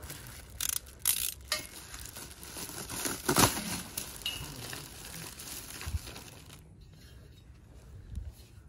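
Plastic packaging crinkling and rustling as the stainless steel parts of a Solo Stove Ranger fire pit are unpacked and handled, with a few short metal knocks, the sharpest about three and a half seconds in. It dies down near the end.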